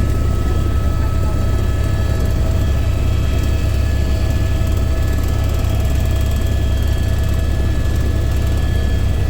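Helicopter in flight: a steady, loud rotor and engine drone with several constant high whining tones from the turbine.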